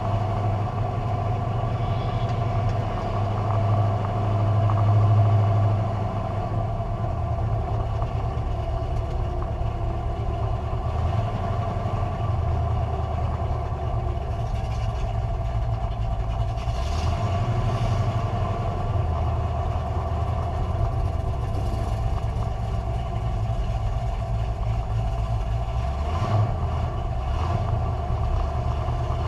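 Carbureted drag car engine running low and steady, with a short swell in revs about five seconds in.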